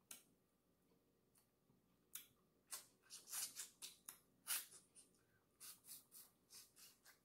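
Mouth sounds of eating turkey neck meat: a quick run of short wet smacks and clicks from chewing and picking at the meat, starting about two seconds in.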